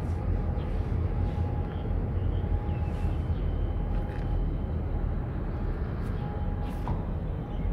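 Steady low outdoor rumble of harbour ambience, with a faint thin tone coming and going and a few faint short chirps.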